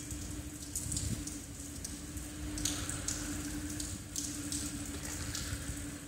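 Rain heard from inside behind glass, as irregular hissing surges over a steady low hum.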